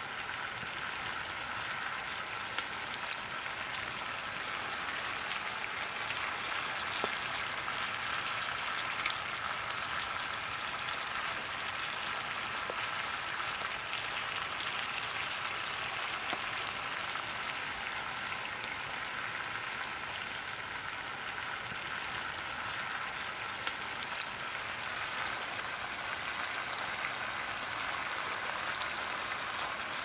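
Chicken pieces sizzling and bubbling in a thick sauce in a wok: a steady frying hiss with occasional sharp pops.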